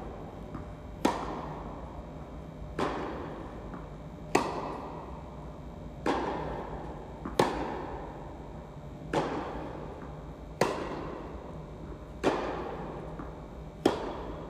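Tennis rally: balls struck by rackets with a sharp pock about every second and a half, each hit ringing out in the echo of an indoor tennis hall, with fainter ball bounces between some of the hits.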